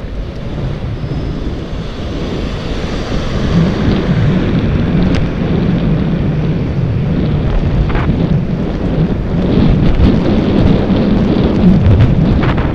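Wind rushing over the microphone of an iPhone on a moving bicycle: a loud, steady rush that swells a little from about four seconds in, with a few brief ticks.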